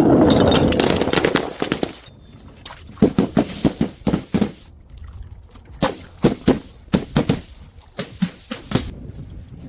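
Things being crushed and broken: a loud crunching rush at the start, then several bursts of sharp cracking and crackling.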